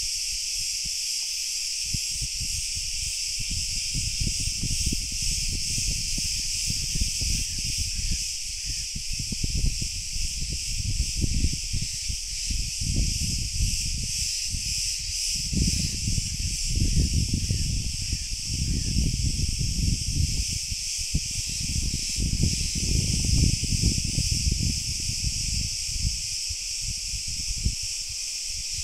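A dense chorus of cicadas: a steady, high-pitched buzz. Low rumbling gusts of wind on the microphone come and go through it, strongest in the second half.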